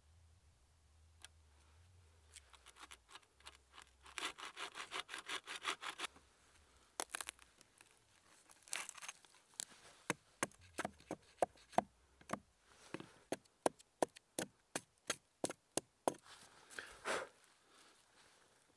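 A small handsaw cutting into a log with quick strokes, then a run of sharp knocks, about two a second, as the wood between the saw cuts is chopped out to form a notch.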